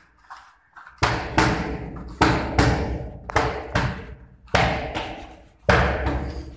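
Boxing gloves smacking into focus mitts in quick combinations, mostly two punches close together about once a second. Each hit rings on in the room.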